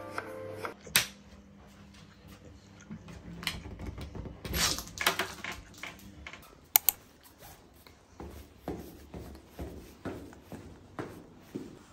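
A few scattered sharp clicks and knocks of everyday handling, then evenly paced footsteps, about two a second, from two-thirds of the way in.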